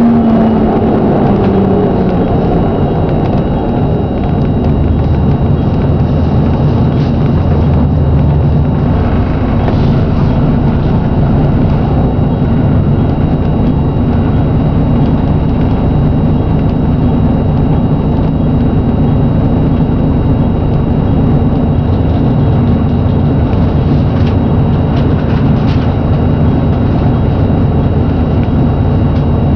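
Plaxton President double-decker bus engine running with a bad knocking. Its pitch falls over the first couple of seconds, then it runs steadily.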